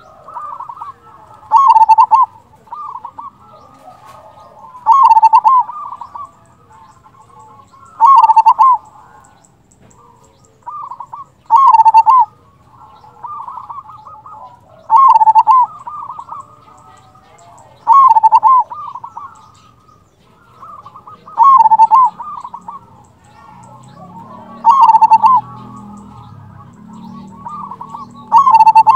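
Zebra dove (perkutut) cooing its song over and over, a short phrase of rapid rolling coo notes repeated about every three seconds.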